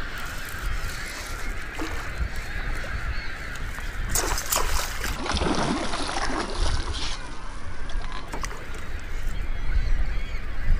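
A colony of gulls calling continuously, many cries overlapping, over a steady low wind rumble on the microphone. A louder rushing noise comes about four seconds in and lasts a couple of seconds.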